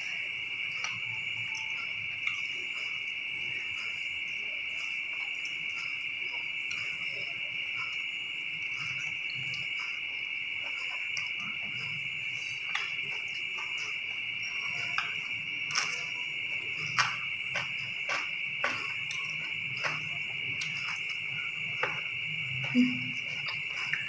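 Steady, high-pitched insect trill throughout, with scattered clicks and crunches of eating fried rice and fried chicken by hand from a glass plate. The clicks come more often in the second half, and there is a brief low hum near the end.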